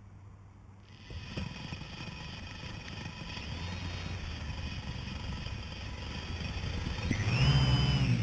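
TBS Discovery quadcopter's brushless motors running while it lies in the grass: a steady whine with several high tones that starts about a second in and slowly grows louder. About seven seconds in the whine rises in pitch and becomes loud, with a low fast chopping from the spinning propellers.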